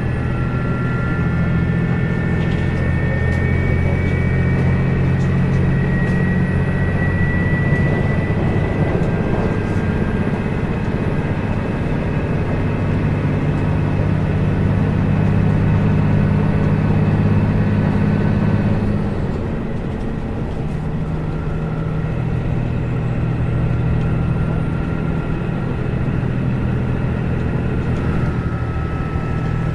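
Diesel engine running steadily, its note easing slightly about two-thirds of the way through.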